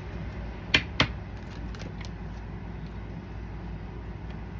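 Tarot cards being handled: two sharp snaps about a quarter second apart, then a few faint ticks, over a steady low hum.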